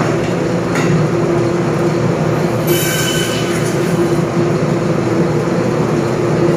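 Butcher's meat band saw running, a steady motor hum and blade whir, with a brief higher screech about three seconds in.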